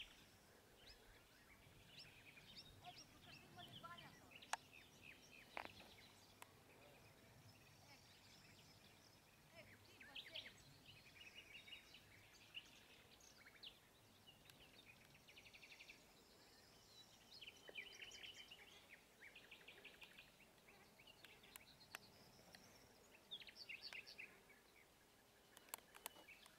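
Faint songbirds singing, with short chirps and several quick trills, over a quiet outdoor hiss. A few sharp clicks stand out, the loudest about four seconds in.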